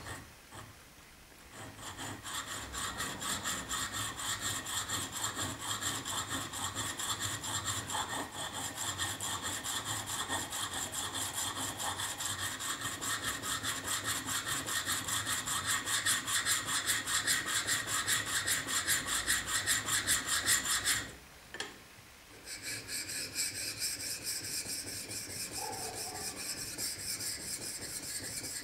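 A steel plane blade forged from truck leaf spring is honed with quick back-and-forth strokes on a diamond sharpening plate: a steady rhythmic scraping rasp. About three-quarters of the way through it stops briefly, then resumes with a lighter, differently pitched scraping on a sharpening stone.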